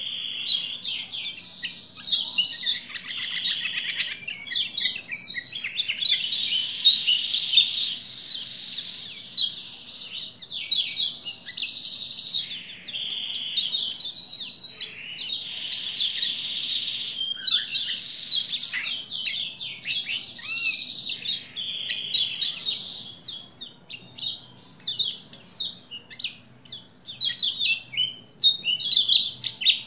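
Lemon-bellied white-eye (kecial kuning) singing a rapid, high, continuous twittering song in long unbroken phrases. In the last few seconds the song breaks into short separate chirps with gaps between them.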